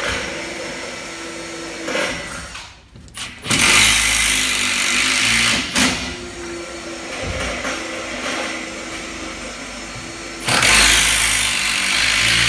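Cordless drill driving screws into mezzanine floor sheeting: two bursts of a couple of seconds each, the first about three and a half seconds in and the second starting near the end.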